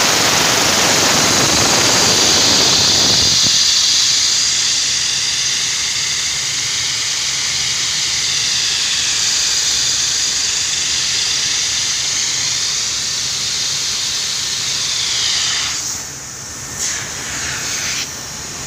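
A loud, steady hiss of a pressurised jet, with a deeper rush underneath for the first three and a half seconds; the hiss weakens and wavers near the end.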